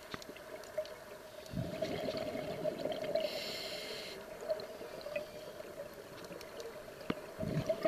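Scuba regulator breathing heard underwater: exhaled bubbles gurgling about one and a half seconds in and again near the end, with a short inhale hiss around three seconds, over a steady hum.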